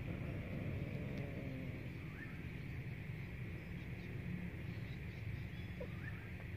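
A cat's faint, drawn-out low growl during mating in the first couple of seconds, over a steady low outdoor rumble, with a few faint short bird chirps.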